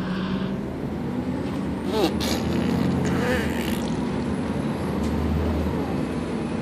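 City bus engine and road noise heard from inside the bus: a steady low rumble, with a brief knock about two seconds in.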